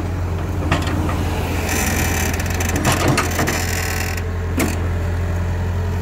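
Hitachi Zaxis 75US excavator at work, its diesel engine running steadily as it swings its empty bucket back from the truck, with a few clanks and a stretch of hiss in the middle.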